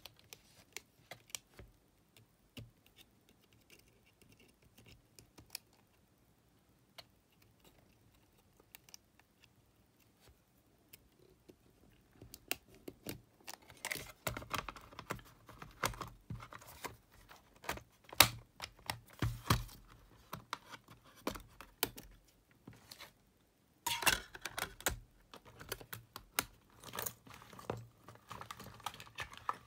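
Small plastic clicks and taps from handling a Sony D-311 Discman during reassembly: a few sparse light clicks at first, then, partway through, a dense run of plastic clatter and clicks as the top cover is fitted over the disc mechanism and closed.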